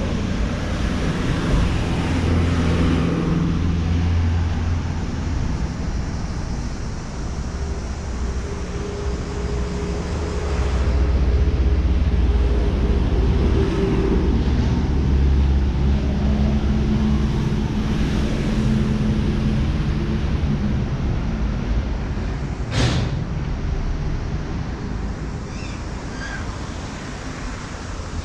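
Street traffic: motor vehicles running and passing, with a heavy low rumble and engine tones that swell and fade. There is one sharp click late on.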